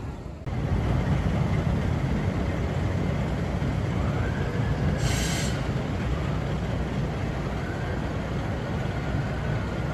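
A tram running past on steel rails: a loud low rumble that comes up suddenly about half a second in, with the wheels squealing twice in a thin, bending tone and two short hisses.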